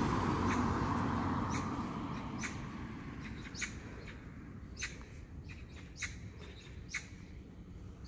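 A small bird calling repeatedly, with short sharp chirps about once a second. Under the first few seconds a low rushing noise fades away.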